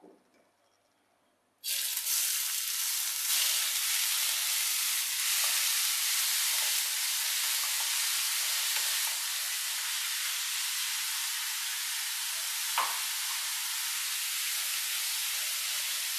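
Sliced onions dropped into hot coconut oil in a frying pan, sizzling loudly and steadily from the moment they go in, under two seconds in, as they are stirred with a wooden spatula. One sharp knock near the end.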